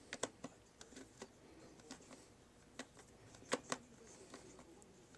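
Irregular sharp clicks and taps from a screwdriver and small screws on the plastic housing of a hair clipper being screwed back together, the loudest a close pair about three and a half seconds in.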